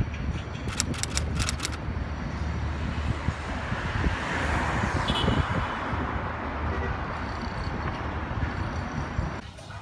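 Steady city street traffic noise with a low rumble, swelling as a vehicle passes about halfway through, and dropping away near the end.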